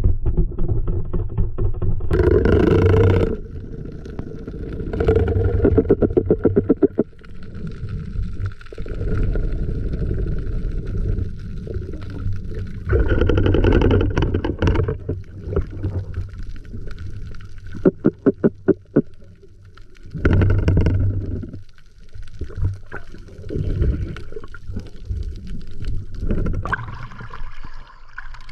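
Underwater sound picked up through an action-camera housing on a night spearfishing dive: muffled surges of water rushing and bubbling as the diver moves, over a steady low hum. About 18 s in comes a quick run of sharp knocks.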